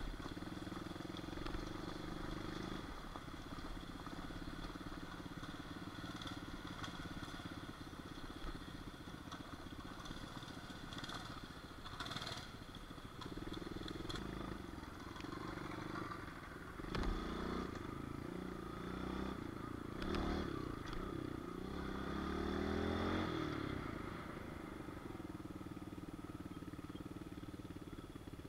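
Small pit bike engine running, its pitch rising and falling with the throttle, with a clear rising rev about three-quarters of the way through. Occasional knocks and rattles are heard over it.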